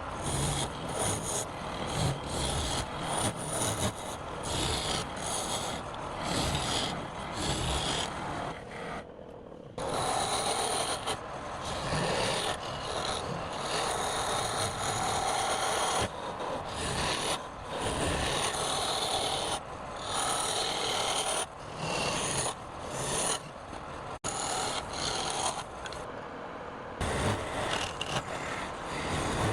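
Wood being cut on a lathe: a turning tool scraping and shaving spinning wood, in short stretches that change abruptly every second or two.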